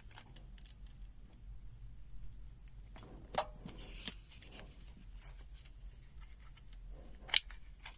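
Light handling sounds of the small plastic pen multimeter, with two sharp plastic clicks, one around the middle and a louder one near the end, as its AAA battery compartment is worked.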